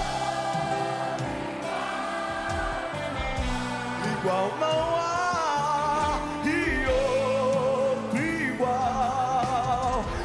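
Live gospel worship song: singing voices holding long notes with vibrato over a band accompaniment.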